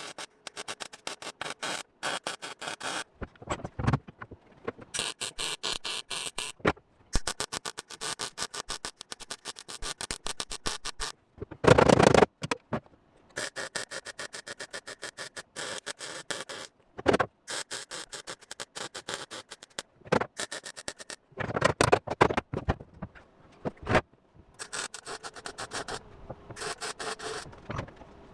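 Welding on a car body's sheet-metal patch panels, crackling in short on-and-off runs of a second or two, as tack or stitch welds. There is a louder, heavier noise about twelve seconds in.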